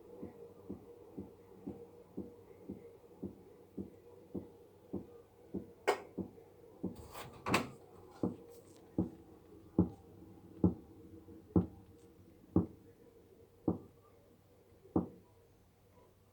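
Electrolux washing machine making a strange repeated knock over a faint steady hum. The knocks come about two a second at first, then slow to about one a second and grow louder. The owner takes it for a manufacturing defect in the two-month-old machine, though Electrolux service calls it normal.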